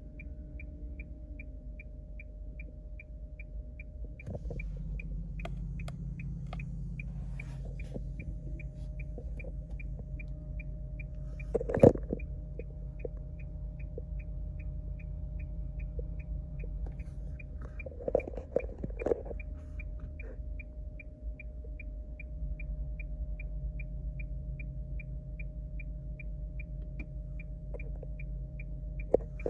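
Steady low hum with a faint, short, high-pitched electronic beep repeating about twice a second, and a few sharp knocks, the loudest about twelve seconds in.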